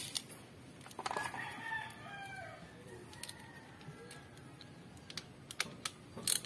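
A rooster crowing, one long call starting about a second in. A few sharp clicks near the end as the drain plug is handled and threaded back into the crankcase.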